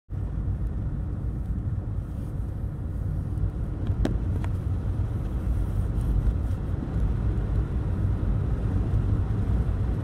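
Steady low rumble of a Mercedes-Benz car driving, heard from inside the cabin: engine and tyre road noise. Two light clicks come about four seconds in.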